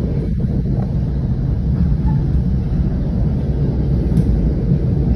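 Steady low rumble of a passenger train coach rolling at speed, heard from inside the car: wheels running on the rails and the car's running noise.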